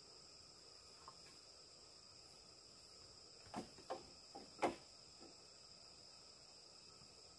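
Steady, high-pitched insect chorus, like crickets, with a handful of sharp knocks a little past halfway, the last the loudest.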